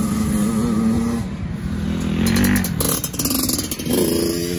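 Dirt bike engine revving as the bike rides along a motocross track, its note rising and falling as the rider works the throttle, with a climbing rev near the end.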